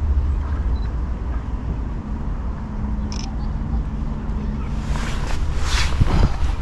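Outdoor walking ambience: a steady low rumble of wind on the microphone, a short high chirp about three seconds in, and footsteps on a path starting near the end.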